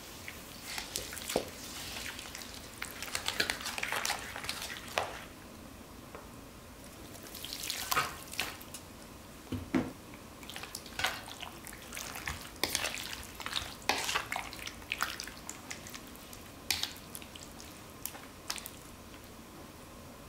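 Wooden spoon stirring a thick, wet chili-paste marinade in a stainless steel bowl, then mixing raw chicken thighs into it: irregular wet squelches and splats with taps and scrapes of the spoon against the bowl.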